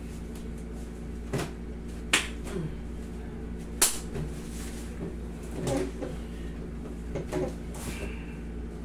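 Hands massaging and bending an injured knee on a padded massage table: three sharp clicks in the first four seconds, the last the loudest, then softer creaks and rustles, over a steady low hum.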